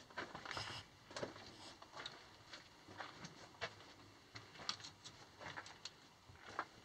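Faint, uneven footsteps crunching on loose rock and gravel underfoot, a short crunch or click every second or so.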